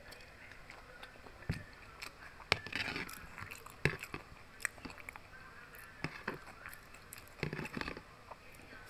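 Close-up eating sounds: wet chewing and mouth clicks from a bite of fried egg, and a metal spoon scraping and tapping in a plastic food container. The sounds come in irregular bursts, with the busiest stretches a few seconds in and near the end.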